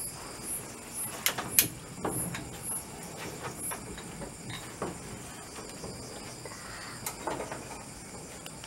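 Night insects: a high chirp repeating about twice a second that stops about halfway through, over a steady high insect whine. Two sharp clicks about a second and a half in are the loudest sounds.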